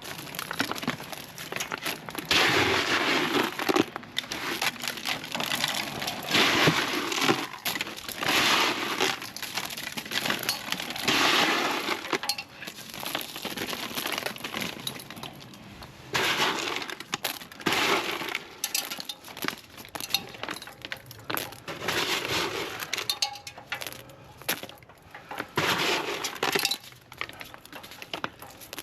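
Small dashing stones clattering and pattering in repeated bursts every two to three seconds, as handfuls of dry dash are thrown against a wet roughcast render coat, with a lull partway through.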